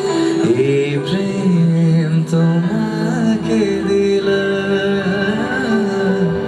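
A song playing: a voice sings long held, wavering notes over instrumental accompaniment.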